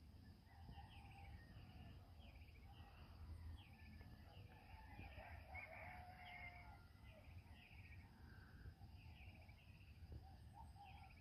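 Faint birdsong of short chirps repeated every second or so, with a distant rooster crowing around the middle.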